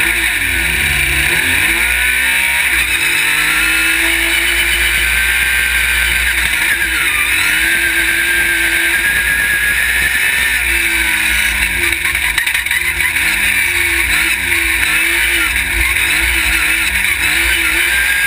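Off-road race buggy's engine heard onboard at full speed, its pitch climbing and dropping repeatedly through gear changes and throttle lifts, steadier through the middle, over a constant rush of wind and dirt.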